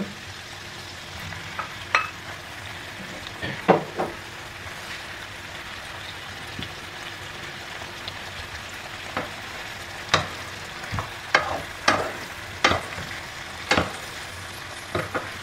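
Chopped vegetables and pineapple chunks sizzling in a frying pan, stirred with a wooden spoon. A steady sizzle runs under sharp knocks and scrapes of the spoon against the pan, a few early and then one every second or so in the second half.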